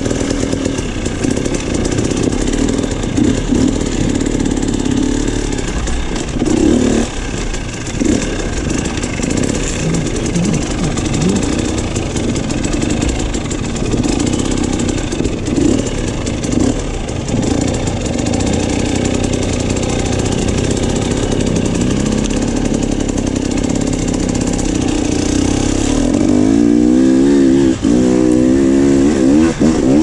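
Dirt bike engine running under throttle on a trail ride, its pitch rising and falling as the rider works the throttle. Near the end it revs harder in quick repeated rising and falling sweeps.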